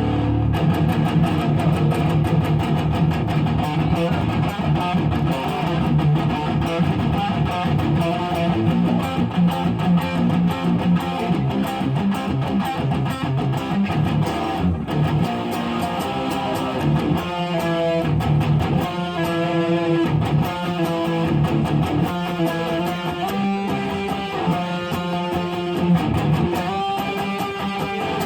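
Mayones Duvell 6 six-string electric guitar being played: fast repeated picking in the first half, then held chords and single notes ringing from about halfway through.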